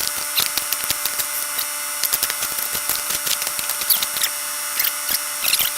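Digging in soil: irregular clicks and scrapes of a tool in dirt and stones, over a steady hum.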